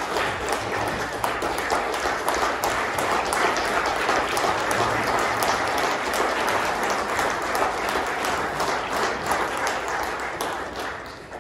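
A small congregation applauding, many hands clapping at once, dying away near the end.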